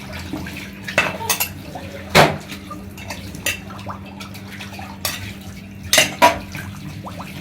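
Kitchen dishes and utensils clinking and knocking against each other as they are washed and handled, a string of separate clinks with the loudest about two seconds in and two close together around six seconds in.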